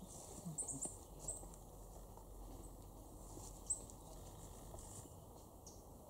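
Tits giving short, very high, thin calls several times, over faint rustling and pattering in dry leaf litter. A single sharp tick stands out a little under four seconds in.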